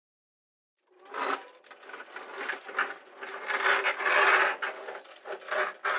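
Heavy plywood crate, about 300 pounds, rolled across a concrete floor on two furniture dollies. The casters make a continuous scraping rolling noise with a faint steady tone underneath. It starts about a second in, is loudest around the middle and eases off near the end.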